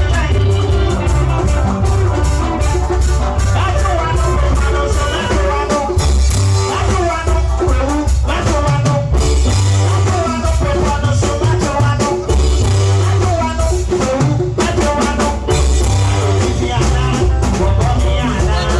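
Music with singing and a steady, heavy bass beat.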